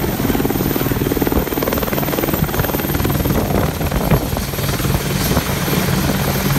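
AH-64 Apache attack helicopter landing: its rotor beats loud and fast and its twin turboshaft engines run steadily as it settles from a low hover onto the grass.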